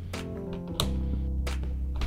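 Background music with sustained low notes that change about a second in, and a few sharp clicks.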